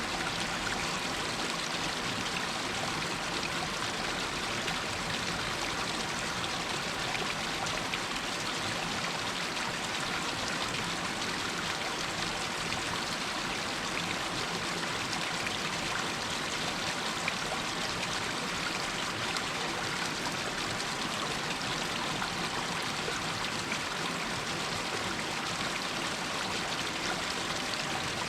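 Shallow water running and splashing down over rocks in a small stream, a steady hiss with no pause.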